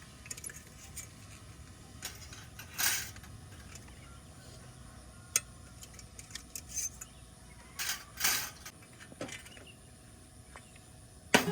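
A handful of short clinks and clatters, like small hard objects being handled, over a low steady background hiss.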